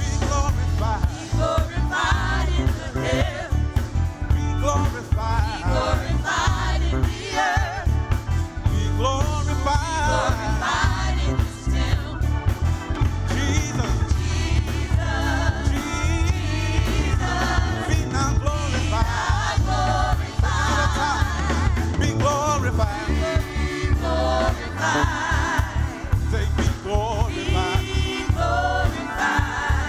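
Gospel praise team singing with a full band, lead and backing voices over a steady bass line.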